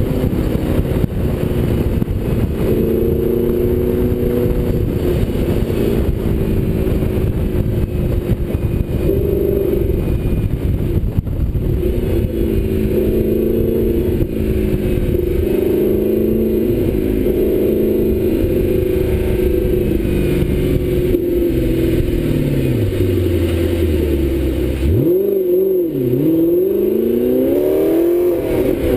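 Audi R8's engine through its Kreissieg aftermarket exhaust, cruising at low speed with wind rumbling on the microphone. Near the end the car slows and the engine note falls, the wind rumble dies away, the note dips and swells twice, then rises as the car pulls away.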